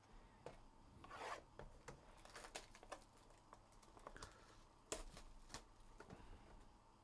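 Faint crinkling and tearing of plastic shrink wrap being ripped off a trading card box, with a few small sharp clicks and taps as the box is handled.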